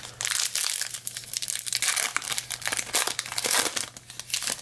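Wrapper of a 2021 Bowman Hobby card pack crinkling and tearing as it is ripped open, a dense run of crackles.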